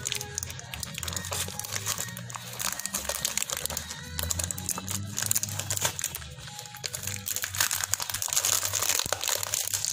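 Thin plastic drink bottle crinkling and crackling as it is squeezed and handled, with background music running underneath.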